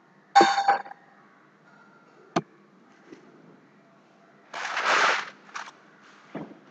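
Scattered crackling noise bursts and sharp clicks. There is a short burst early on, a single click a little past two seconds, then a longer crackly burst and a shorter one around five seconds in, and a low knock near the end.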